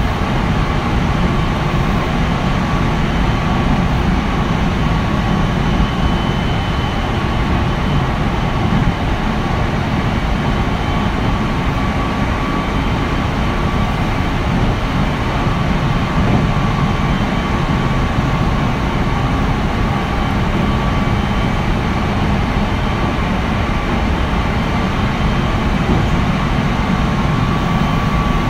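Running sound inside a Meitetsu 3100 series electric train car with Toshiba IGBT inverter drive: a steady rumble of wheels on rail with a steady tone above it, the train running at an even speed.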